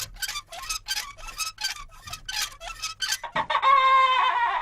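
Rhythmic squeaking and clinking, about four to five strokes a second: a foley sound for a sign swinging in the wind. About three and a half seconds in it gives way to a drawn-out, pitched hen's cackle lasting over a second.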